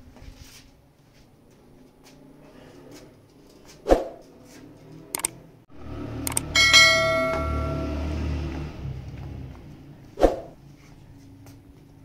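Subscribe-button sound effect: mouse clicks followed by a ringing notification-bell chime that fades over a couple of seconds. A sharp knock sounds a few seconds in and another near the end.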